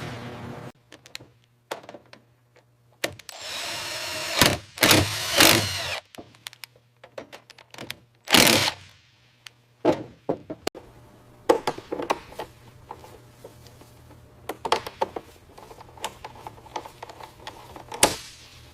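Hands-on mechanical work noises: scattered metal knocks and clanks, with a few short bursts of a power tool, over a faint steady low hum.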